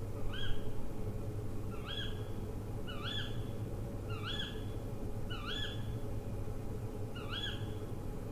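An owl calling: a short high note that sweeps up and then holds briefly, repeated six times about once every second or so. A steady low hum runs underneath.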